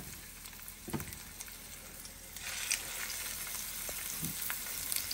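Sous-vide beef searing in hot olive oil in a frying pan, sizzling. A soft knock sounds about a second in, and the sizzle gets louder about two seconds in as a second piece of meat is laid into the oil.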